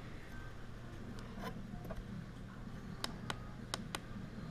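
Small sharp clicks of handling the FPV monitor and receiver setup: about six, two near a second and a half in and a tight cluster of four near the end, over a faint steady low hum.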